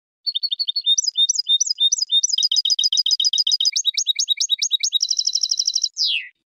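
European goldfinch singing one long song phrase of rapid, repeated twittering notes. About five seconds in it speeds into a fast trill, and it ends with a single falling note.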